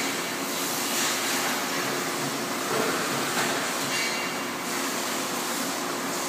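Robotic spot welding line running: a steady machine hum with short, sharp bursts that recur every second or two.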